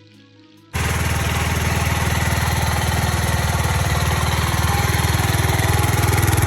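Suzuki GZ 250's single-cylinder four-stroke engine running steadily with an even, fast firing beat. It cuts in abruptly under a second in.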